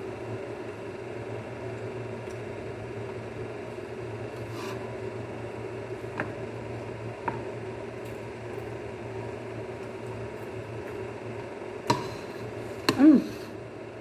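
A person chewing and handling deep-fried birds by hand, with soft squishy sounds and a few faint clicks over a steady low background hum. Near the end come two sharper clicks and a brief murmured vocal sound.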